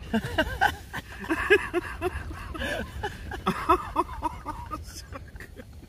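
Several men laughing together in short, repeated bursts of chuckling.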